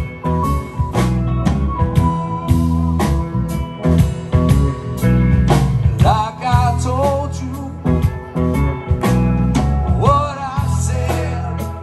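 Live rock band playing with drums, bass, guitars and keyboards. A wavering melody line comes in about six seconds in and again near ten seconds.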